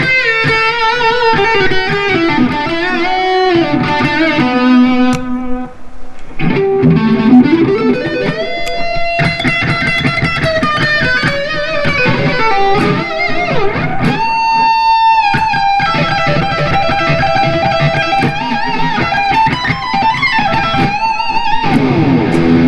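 Replica Gibson Les Paul Custom electric guitar, played through a Marshall MG100HFX amp head and 4x12 cabinet, playing a single-note lead line with string bends and vibrato, including a long held note about two-thirds of the way through. The guitar has had a full pro setup and reintonation.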